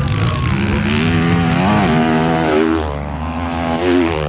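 Motocross bike engine revving hard as the bike races past close by, its pitch rising and falling with the throttle and gear changes. It is loudest near the end, as it passes nearest.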